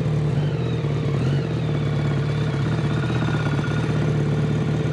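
Air-cooled Honda 750cc engine of a cross kart running at a steady, even speed as the kart drives along, heard close up from on board.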